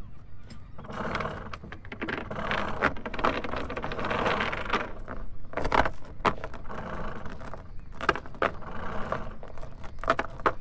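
Anchor chain hauled up by hand, its links rattling over the bow and dropping into the chain locker in spells, with single sharp clanks between the pulls.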